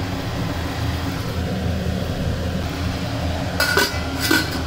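Curry simmering in a kadhai over a steady low hum; near the end a stainless-steel lid clinks twice against the pan as it is set on.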